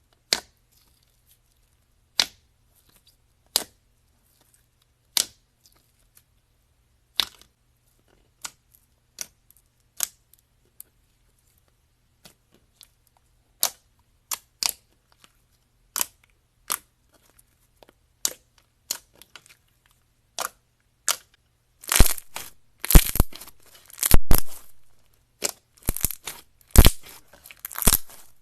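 Slime being pressed and squeezed, giving sharp popping clicks about every second or two, then a louder, denser run of crackling pops near the end.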